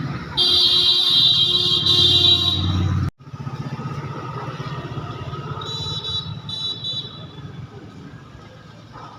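Electric jigsaw motor running with a fast, steady buzz, and a loud high-pitched whine over it that cuts off abruptly about three seconds in; a shorter, fainter whine returns near the middle.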